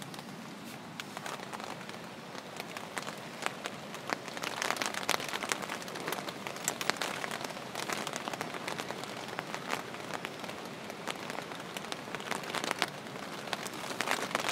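Heavy rain hitting a tent's fabric, heard from inside the tent: a steady hiss full of sharp drop hits. It grows heavier about four seconds in.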